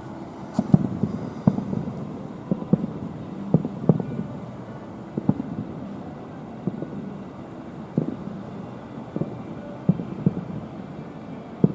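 Fireworks bursting: a run of irregular dull booms, about one or two a second, over a low rumble.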